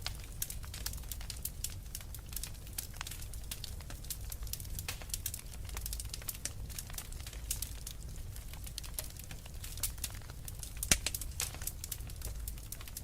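Fire crackling steadily with many irregular small pops over a low, even rumble, and one louder pop near the end.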